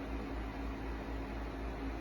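Steady background hiss with a low hum and a faint steady tone, like a running fan or air conditioner in a small room.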